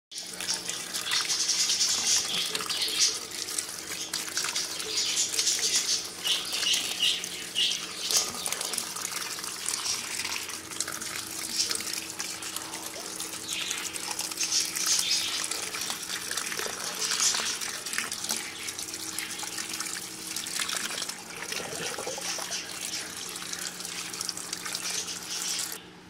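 Tap water running and splashing over romaine lettuce leaves as they are rinsed and turned by hand, the splashing swelling and easing as the leaves move under the stream. A faint steady hum lies underneath, and the water stops just before the end.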